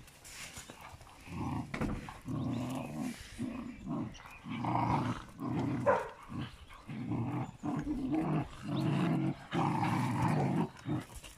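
Several young dogs play-growling as they wrestle and tug at a rope toy: a long run of low, rumbling growls, one after another with short breaks, starting about a second in.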